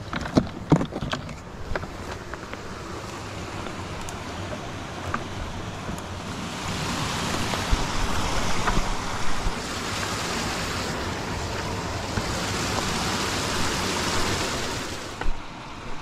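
Creek water running over small bedrock waterfalls and cascades, a steady rushing that swells about halfway through and drops off suddenly near the end. A few sharp knocks near the start.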